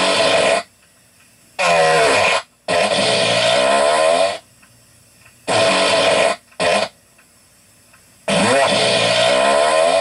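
Farts, one after another: six in all, from a brief one to long ones of more than a second, each with a low, wavering, bending pitch.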